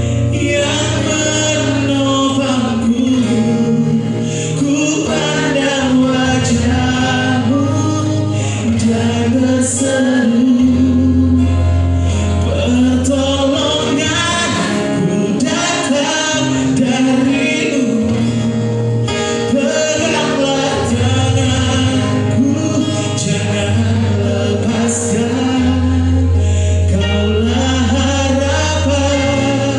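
A young singer singing a Christian worship song over instrumental accompaniment, with long held bass notes under the sung melody.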